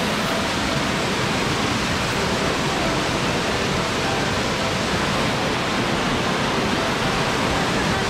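Waterfall: falling water making a steady, unbroken rushing noise.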